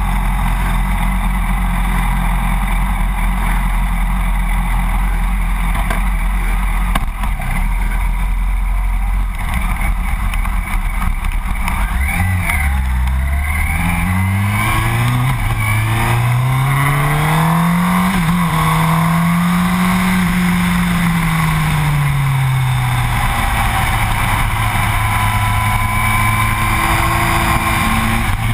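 Yamaha R1's inline-four engine running at low revs, then about twelve seconds in the revs climb steadily for several seconds, hold near the top and fall back, under a steady rush of wind and road noise.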